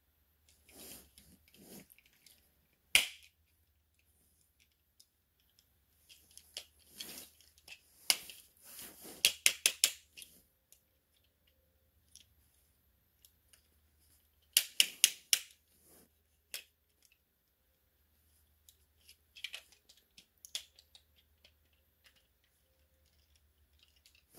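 Hard plastic parts of Transformers Studio Series figures clicking and snapping as they are handled and fitted together: one sharp snap about three seconds in, then quick runs of clicks in two clusters and a few scattered clicks later.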